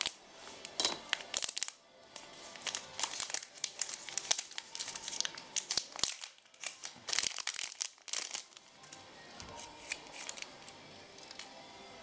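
Clear plastic packaging bag crinkling and being torn open by hand: a quick, irregular run of sharp crackles that dies down about nine seconds in.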